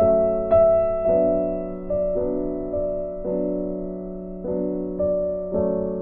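Background music: a slow keyboard melody, notes struck every half second or so and fading, over a held low tone.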